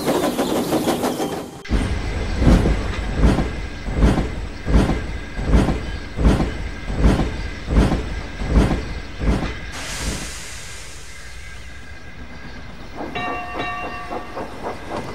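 Steam locomotive sound effect: a steady run of heavy chuffs, about one and a half a second, ending in a burst of steam hiss that fades. Near the end comes a short broken whistle.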